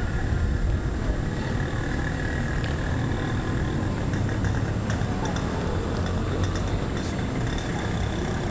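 Steady outdoor street noise: a continuous low rumble of road traffic with a few faint ticks.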